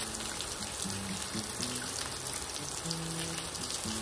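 Pork belly slices sizzling in a frying pan: a steady hiss of frying fat with small crackles, over light background music.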